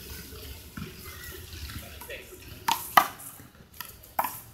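Small rubber handball smacking hard surfaces: two sharp slaps close together about three seconds in and another near the end.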